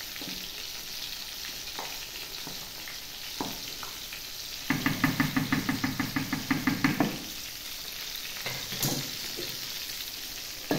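A tomato and vegetable mixture sizzling and simmering in a stainless steel pot as a spoon stirs it, with a few light knocks of the spoon. About halfway through, a fast rhythmic rattle of about nine beats a second lasts a couple of seconds and is the loudest sound.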